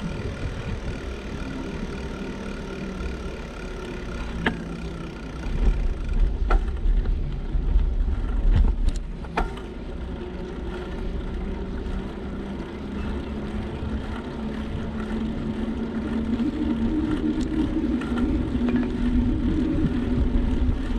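Noise of riding a bicycle along a road: wind gusting on the microphone, with a few clicks. A motor vehicle's hum grows steadily louder through the second half.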